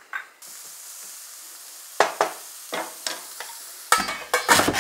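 Chopped vegetables sizzling steadily in hot olive oil in a stainless frying pan, starting abruptly about half a second in, with a few light taps of a utensil against the pan. Near the end a metal pan lid clatters loudly against the pan as it is handled.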